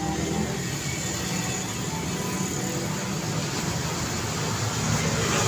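Steady road traffic on a busy city street: engines and tyre noise, with a vehicle passing close and louder near the end.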